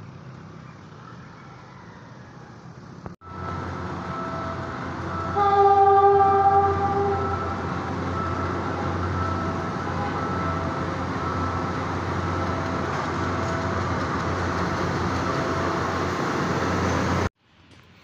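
A Philippine National Railways diesel-hauled passenger train at a level crossing. Its horn blows for about two seconds, then the train rumbles steadily past. The horn is the loudest sound.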